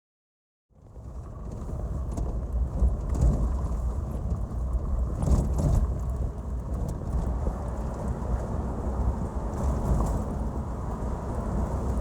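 Off-road 4x4 driving over a rough dirt track: a steady low engine and tyre rumble with scattered knocks and rattles from the bumps, starting about a second in.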